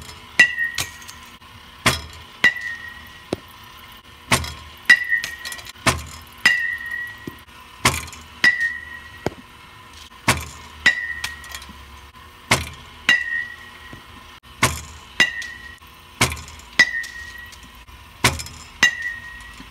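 Marucci CAT 7 one-piece alloy bat hitting pitched baseballs about every two seconds, each contact a metallic ping with a short ring. Each hit is preceded about half a second earlier by a sharp knock, with a faint steady hum underneath.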